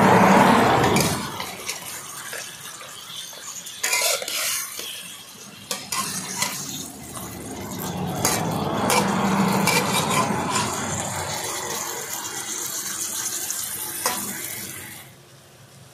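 Metal spatula scraping and clinking in an aluminium wok as pork slices and onion rings are stirred, with sizzling in the hot oil. The sizzling and scraping are loudest in the first second and again about eight to eleven seconds in, with sharp clinks in between, and die down about fifteen seconds in.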